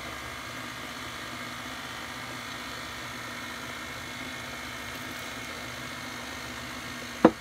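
Electric stand mixer running steadily on low speed, its beater churning thick chocolate cake batter in a steel bowl. A single sharp knock sounds near the end.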